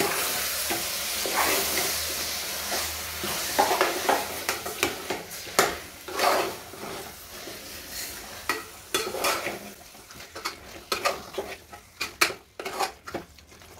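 Metal spoon stirring and scraping mutton through masala in a pressure cooker, with a frying sizzle as the meat is sautéed in the spices. The sizzle thins out in the later seconds, leaving mostly the scrapes and clicks of the spoon against the pot.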